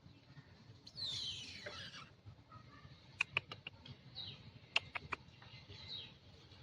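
Monkey calls: a high squeal that slides down in pitch about a second in, then a couple of short high chirps, with a few sharp clicks in between.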